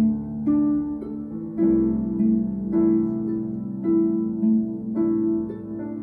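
Concert harp playing a slow, repeating figure of plucked notes, a new note about every half second, each left ringing.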